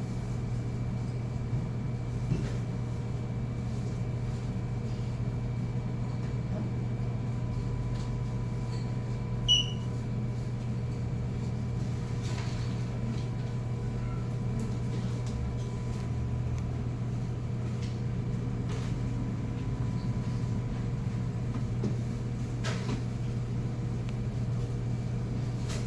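Steady low machine hum with a few faint clicks and knocks, and a short high beep about nine and a half seconds in.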